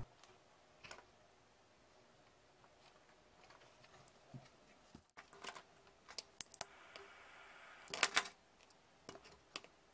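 Quiet handling of a metal pocket lighter and a plastic tool on a cutting mat: scattered sharp clicks and taps, a cluster of clicks about two-thirds of the way in, then a faint hiss for about a second and another clatter of clicks.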